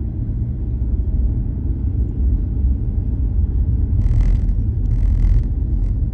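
Car driving along a road, heard from inside the cabin: a steady low rumble of engine and tyres. Two short bursts of hiss come about four and five seconds in.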